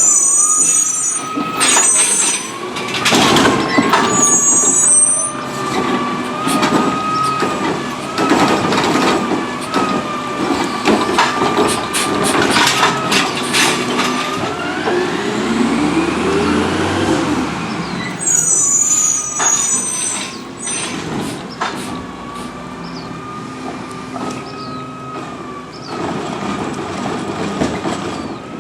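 Autocar ACX garbage truck with a Heil Rapid Rail automated side-loader, with the steady high whine these trucks make at idle running throughout. Scattered clanks and bangs come from the truck and the toters. Short sharp air hisses come near the start and again around twenty seconds in.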